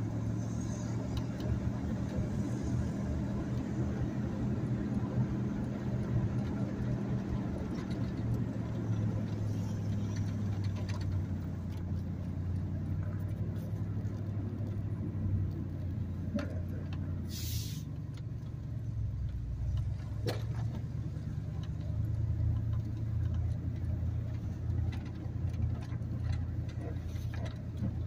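Pickup truck's engine and road noise heard from inside the cab while driving, a steady low hum that shifts lower about two-thirds of the way in. A brief hiss cuts in once partway through.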